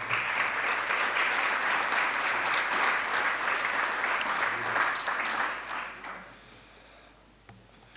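Audience applauding steadily, then dying away about six seconds in.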